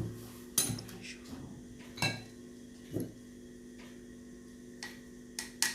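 Kitchen utensils knocking and clinking against a mixing bowl while flour is sifted in: a few sharp knocks about a second apart over a faint steady hum.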